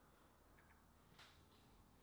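Near silence: room tone, with one faint, short rustle about a second in.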